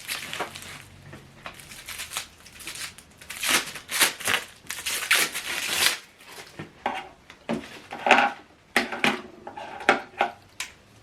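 Packaging being handled as a soundbar remote control is taken out: irregular crinkling, rustling and tearing of wrapping, with small clicks and knocks of plastic.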